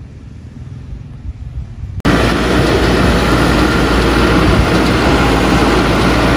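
A faint low outdoor rumble, then, about two seconds in, a sudden cut to a wheel loader's diesel engine running loud and steady, with a deep hum underneath.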